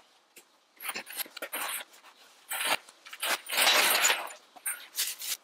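Folding engine hoist with an engine hanging from it being pushed across a concrete floor: casters rolling and the hoist's chain and metal parts rattling in uneven bursts, loudest about three and a half to four seconds in.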